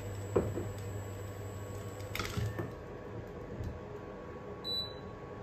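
An induction hob is running with a steady low hum and faint whine while an oiled pan heats on it. A few light clicks and knocks come about half a second and two seconds in, and a brief high tone sounds near the end.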